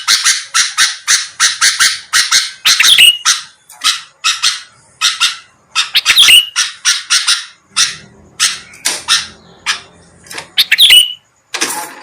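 Sooty-headed bulbul (kutilang) calling rapidly: a string of short, harsh chirps, several a second. Every few seconds comes a louder down-slurred note, and the calls thin out for a while after the middle.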